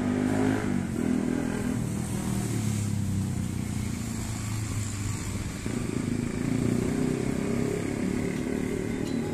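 Motorcycle traffic passing on a road: small motorcycle engines running by, with the sound dipping briefly a little past halfway and building again as more bikes come through.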